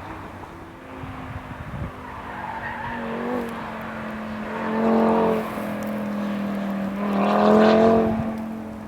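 Audi RS3 8V's turbocharged five-cylinder engine holding a steady note while the tyres squeal under hard cornering. The squeal swells louder twice, about five seconds in and again about seven and a half seconds in.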